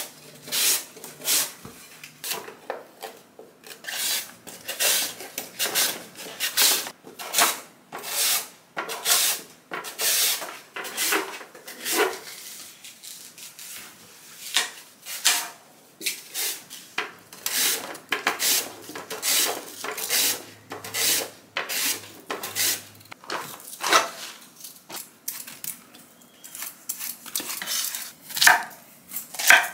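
Food-prep sounds in repeated, irregular strokes, one to two a second: a Korean radish being julienned on a mandoline slicer, then a knife peeling and cutting pears and apples.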